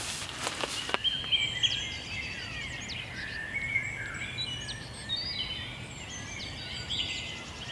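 Several songbirds singing, overlapping chirps, trills and short whistled phrases starting about a second in, over a faint low background noise. A few sharp clicks and rustles come in the first second.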